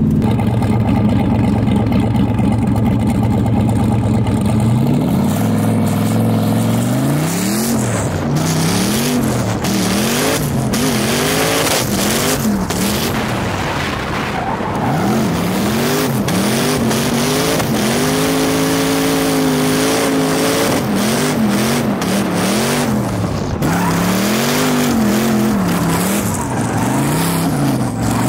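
Turbocharged LS V8 drift car heard from on board, running steadily at first, then revving up and down again and again from about five seconds in as it slides, with tyres screeching.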